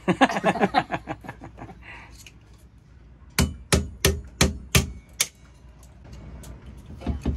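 Claw hammer tapping a nail at the hinge of a boat's port light window frame: a voice first, then six quick sharp strikes over about two seconds, and a few more near the end.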